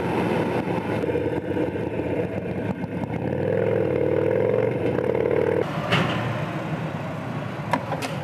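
Motorcycle engine running steadily while riding at road speed. About two-thirds of the way through it gives way to quieter surroundings with a sharp click, and a few more clicks come near the end.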